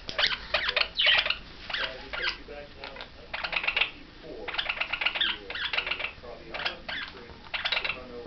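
Pet birds chirping and chattering: a quick, uneven run of short, high chirps.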